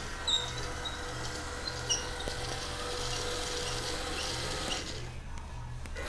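Two small geared DC motors of a two-wheeled robot whirring as it drives, with a low, evenly repeating pulse and scattered short high squeaks. The motor noise drops away about five seconds in, then picks up again.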